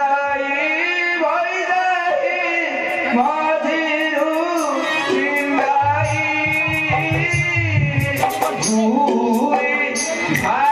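A voice singing a melody with instrumental accompaniment, low drum beats joining about six seconds in.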